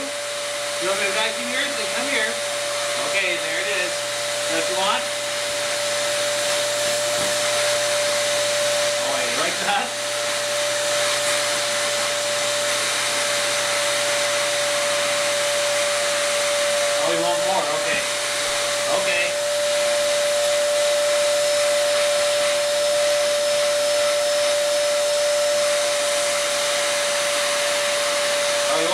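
Dyson canister vacuum cleaner running steadily, a constant whine over rushing suction, its wand nozzle held against a dog's fur. A few brief wavering sounds rise over it in the first few seconds and again now and then.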